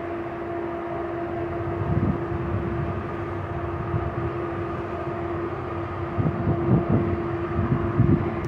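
Steady machinery hum of a moving cruise ship, a constant drone with one clear steady tone. Low gusts of wind rumble on the microphone about two seconds in and again near the end.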